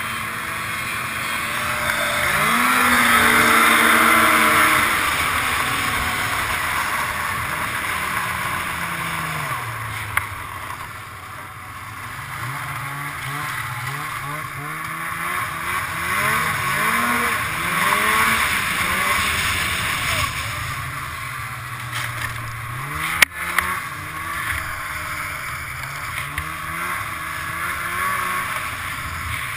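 Snowmobile engine running and revving, its pitch rising and falling with the throttle over a steady rushing hiss. It climbs to its loudest a few seconds in, eases back around ten seconds, then revs up and down again, with a single sharp knock about three-quarters of the way through.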